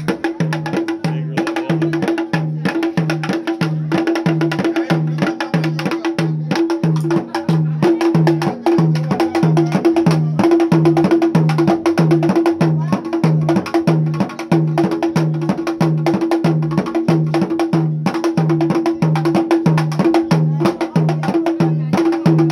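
Bassa wooden box drums struck with thin sticks by several players in a fast, steady interlocking rhythm. A low tone pulses about twice a second beneath rapid clicking strokes.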